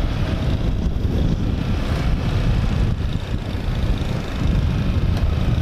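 Wind rushing over the microphone of a moving motorcycle, a steady low rumble mixed with the bike's engine and road noise.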